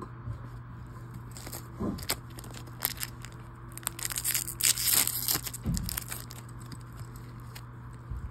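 A foil trading-card booster pack is handled and torn open. The wrapper crackles a few times, then gives a dense crinkling rip about four to five seconds in, the loudest part. A faint steady low hum runs underneath.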